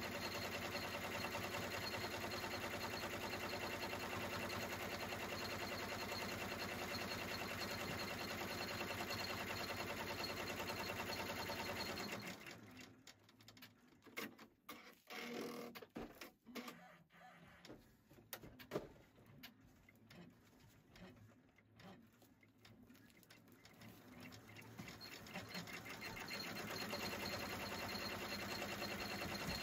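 Computerised embroidery machine stitching at a steady, fast rate. About twelve seconds in it stops, leaving a stretch of quieter, irregular clicks and knocks with one sharper knock. The stitching then starts up again near the end.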